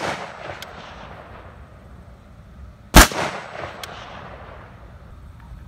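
Single AR-15 rifle shot about three seconds in, sharp and loud with a long fading echo; the echo of a previous shot is dying away at the start.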